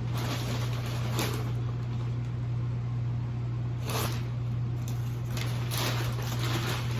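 Cardboard box and plastic packaging being handled and rustled in short bursts, over a steady low hum.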